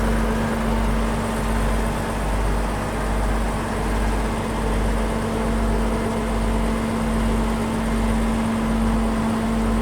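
Heavy diesel engine of mining machinery running steadily, a low rumble with a steady hum over it.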